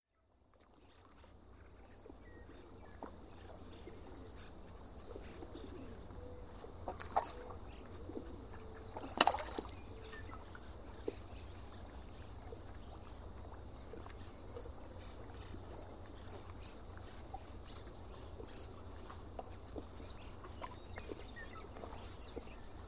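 Quiet outdoor ambience: a steady low rumble, with faint, high, short falling bird chirps scattered throughout and two sharp clicks about seven and nine seconds in, the second the loudest sound.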